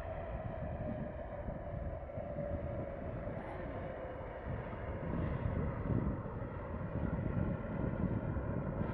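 Jet airliner landing close by: a high engine whine falls slowly in pitch over the first few seconds above a steady low rumble, and the rumble swells a few seconds in.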